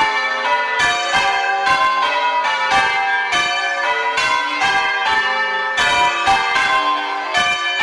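A ring of six church bells, an old-fashioned 11 cwt six in G, rung full-circle in the English change-ringing style. The bells strike one after another in a quick, even rhythm, each note ringing on under the next. Their tone is clonky but they blend well together.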